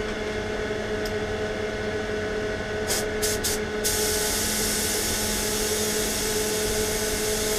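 Compressed air hissing out of the spray-gun airline: three short blasts about three seconds in, then a continuous blast, as the line and moisture trap are purged of water. A steady extractor-fan hum runs underneath.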